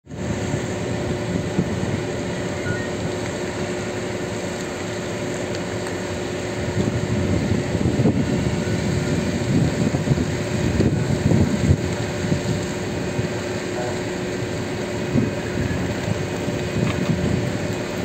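A steady engine drone with two constant hum tones, under a low rumbling that swells from about seven seconds in and eases off again.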